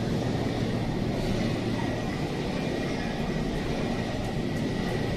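Seibu 2000 series electric commuter train rolling slowly along the platform and drawing to a stop, a steady rumble of wheels and running gear. A thin, steady high whine joins it from about a second in.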